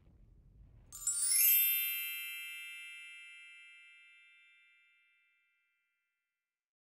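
Sparkling chime sound effect: a quick upward run of bell-like tones about a second in, then ringing on and fading out over about three seconds.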